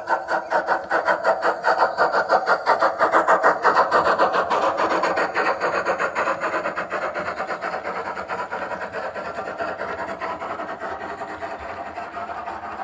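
Sound decoder in a Hornby model of a Bulleid Battle of Britain class steam locomotive playing a Merchant Navy class soundfile through its speaker: steady exhaust chuffs at about five a second. The chuffs grow fainter after about four seconds as the engine runs away past the signal box.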